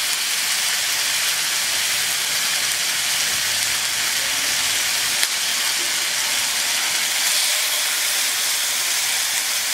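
Chipotle-marinated chicken thighs sizzling in a hot, lightly oiled grill pan: a steady frying hiss, with a single brief click about halfway through.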